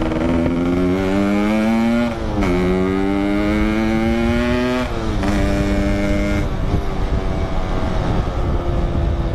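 Yamaha RX-King's 135cc single-cylinder two-stroke engine accelerating through the gears under way: the engine note climbs, drops at an upshift about two seconds in and again near five seconds, then holds steady before sinking under low wind rumble for the last few seconds.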